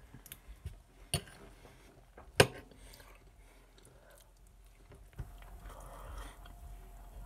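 A metal fork clinking sharply against a plate twice, the second clink the louder, among a few small ticks, then a stretch of close chewing of asparagus and baked potato in the last couple of seconds.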